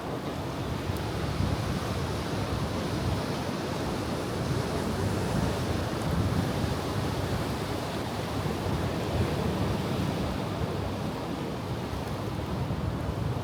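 Ocean surf: a steady rush of waves washing ashore, swelling and easing gently, heaviest in the low rumble.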